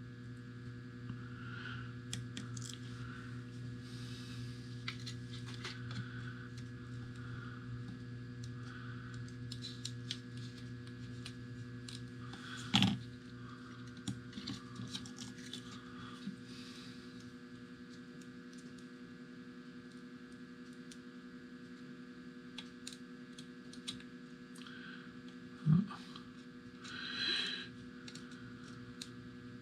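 Small scattered clicks and taps of tiny plastic parts and a circuit board being handled over a steady electrical hum. There is a louder knock about 13 seconds in and another about 26 seconds in.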